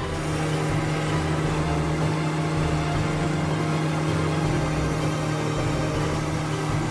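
Kubota BX2380 tractor's three-cylinder diesel running steadily under load, driving a BX2816 front-mounted snowblower as it throws snow out of its chute: a constant engine hum over a broad rushing noise.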